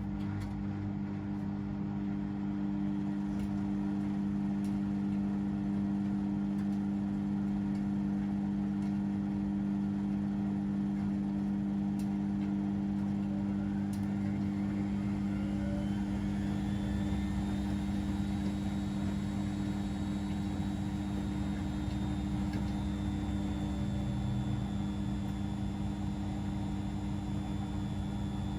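Washing machines and tumble dryers running together with a steady low hum. About halfway through, a motor whine rises in pitch and then levels off, holding high to the end.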